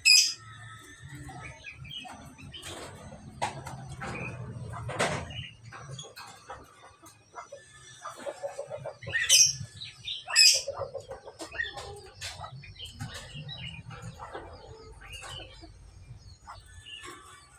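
Budgerigars chirping and chattering in short, busy calls, with a few loud, sharp squawks at the start and twice around the middle.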